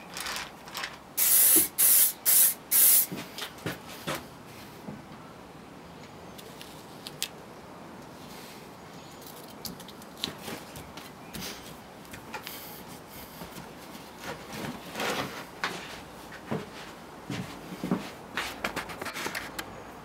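Aerosol spray can giving a few short, loud hissing bursts of spray onto an oak workpiece, followed by quieter light knocks and rubbing from handling the piece.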